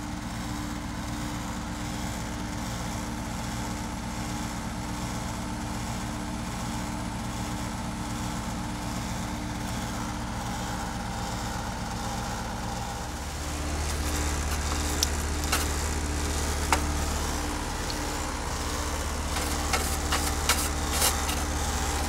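Heat pump outdoor unit running in cooling mode, its compressor and condenser fan giving a steady hum. The unit is being charged with R-410A because its superheat is high from a low charge. About 13 seconds in the hum grows louder and deeper, and a few light clicks come near the end.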